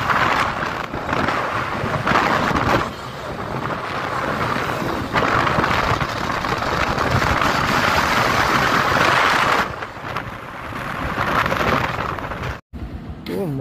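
Wind buffeting the microphone of a camera on a moving motorcycle, in gusts that swell and ease every second or two. It cuts off abruptly near the end.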